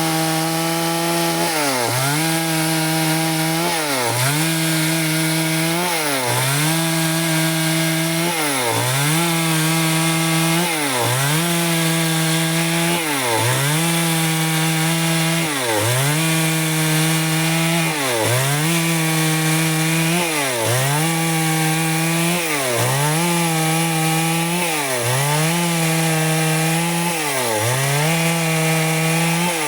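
Stihl chainsaw running at high revs under load, sawing lengthwise through wood. Its engine note dips briefly and recovers about every two seconds, and it falls away right at the end as the throttle is let off.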